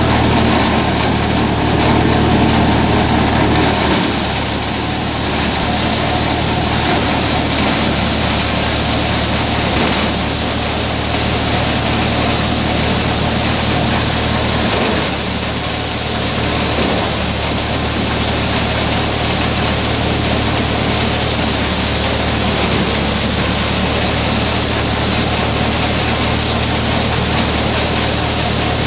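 Tractor-powered paddy thresher running steadily at working speed, its engine and threshing drum giving a constant low drone under a dense mechanical clatter, with a high hiss that grows stronger about four seconds in as threshed rice grain pours from the outlet chute.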